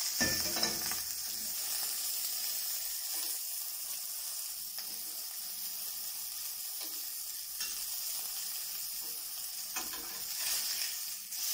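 Beef burger patty sizzling steadily as it fries in oil in a stainless steel pan, with a few brief scrapes of a metal spatula against the pan.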